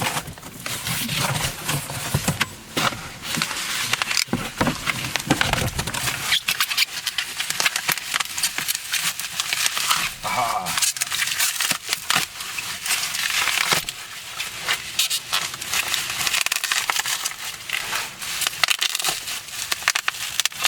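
Packaging crinkling and crackling continuously as it is handled and pulled open.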